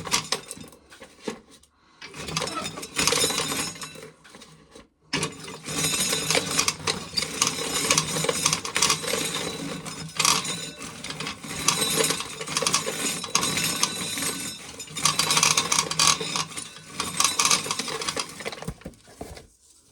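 Hand-cranked corn sheller being turned, its metal works clattering as shelled kernels rattle down into a pail. The cranking stops briefly twice in the first five seconds, then runs on steadily until just before the end.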